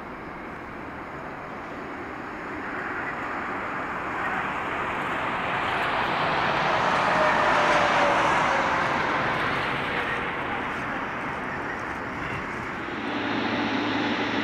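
Jet airliner taking off and climbing out overhead: its engine noise swells to a peak about halfway through, with a whine falling in pitch as it passes, then fades. Near the end it gives way to the steadier, lower hum of a Japan Airlines Boeing 777-300ER's engines as it taxis.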